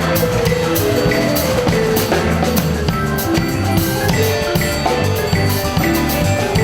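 Live band music: a drum kit keeps a steady beat under held pitched notes from other instruments.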